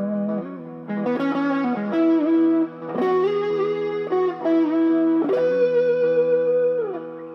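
Fernandes Strat-style electric guitar played through an amp: a run of picked notes and double-stops over a ringing low note, then a long held note that slides down in pitch near the end.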